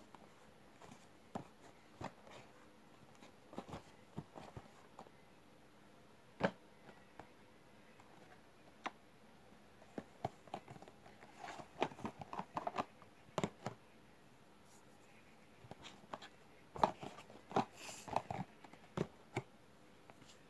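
Cardboard model-aircraft boxes being handled and stacked by hand: scattered light taps, knocks and scrapes, bunching into quick clusters about halfway through and again near the end.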